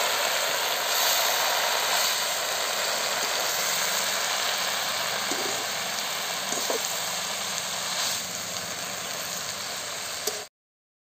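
Fresh saag leaves sizzling in hot oil in a kadhai while a metal spatula turns them, with a few light scrapes of the spatula against the pan. The sound cuts off suddenly shortly before the end.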